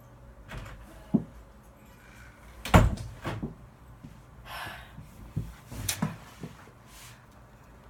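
A door being handled, opened and shut: a string of sharp knocks and thuds, the loudest about three seconds in, with a short rustle partway through.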